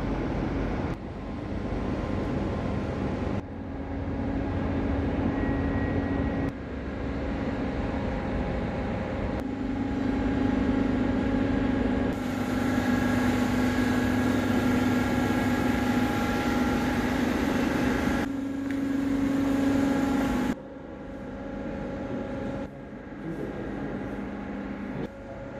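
Railway station platform ambience: a steady low rumble with an electrical hum that holds a few steady tones. The sound jumps abruptly several times at edits and drops lower near the end.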